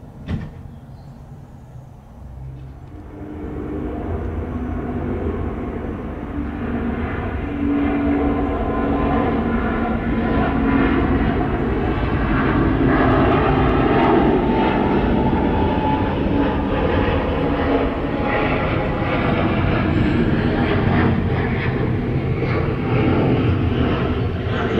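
Jet engines of a departing Airbus A350-900 (Rolls-Royce Trent XWB turbofans) climbing out after takeoff: a steady, noisy jet rumble that builds over the first few seconds and then holds loud as the aircraft passes overhead. A short knock sounds just after the start.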